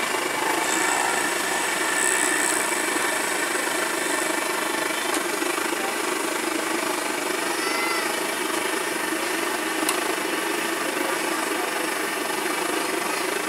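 Raw banana slices deep-frying in a large wok of hot oil: a dense, steady sizzling crackle.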